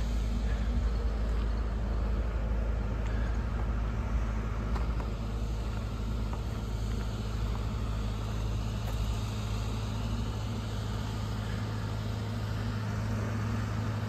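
Engine idling steadily: a low, even hum, with the deepest rumble easing near the end.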